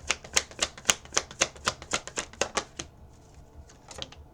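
Tarot cards being shuffled by hand: a quick, even run of card slaps and clicks, about four a second, that stops about three seconds in, followed by a couple of single card clicks near the end.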